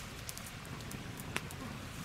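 Wood campfire crackling with scattered sharp pops, one louder about two-thirds of the way through, over a steady low rush.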